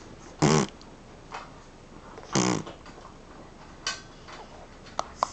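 Baby cooing twice, two short pitched vocal sounds about two seconds apart, with a fainter one later. A run of quick, evenly spaced clicks starts near the end.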